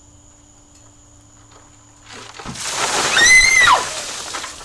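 A cooler of ice water dumped over a person: a sudden rush of pouring, splashing water about two seconds in, with a high-pitched shriek that rises and falls over about a second at its loudest, then the splashing dies away.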